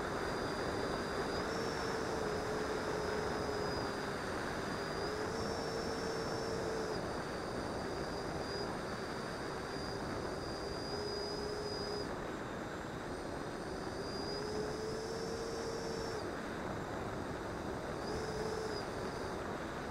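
Electric ducted fan of an E-flite Viper 90 RC jet heard from on board in flight: a steady whine over a rush of air. The pitch steps up for a second or two several times as the power changes, then settles back.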